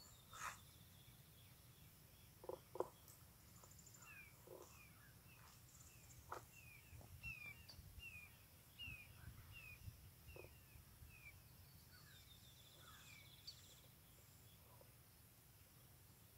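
Faint birdsong: a string of short chirps repeated about twice a second through the middle, with a high trill near the start and another near the end. Two sharp clicks about two and a half seconds in are the loudest sounds.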